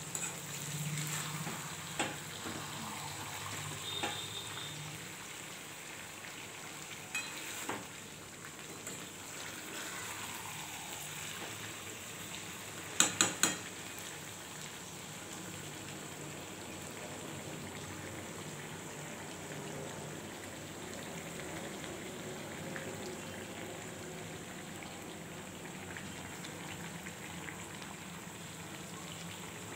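Chicken and potatoes frying in spiced oil in a kadai, with a steady sizzling hiss as a metal spatula stirs and scrapes through them. There are a few sharp clicks of the spatula on the pan, and three quick loud knocks together about 13 seconds in.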